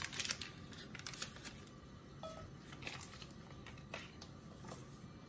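Faint handling sounds, scattered light clicks and rustles, as a stick of butter is set into a cast-iron skillet, over a low steady background hiss.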